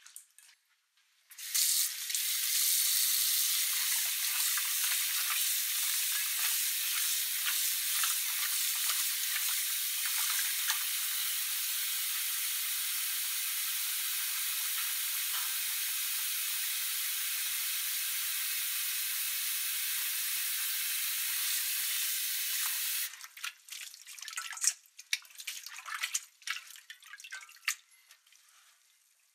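Tap water starts pouring a second or so in, running steadily into a stainless steel bowl of frog meat being rinsed. It stops near the end, leaving irregular drips and splashes as the frog pieces drain in a colander.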